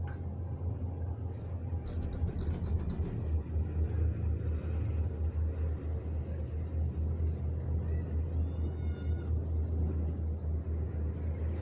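Steady low rumble inside an enclosed cable car gondola cabin travelling along its cable, its loudness fluttering unevenly.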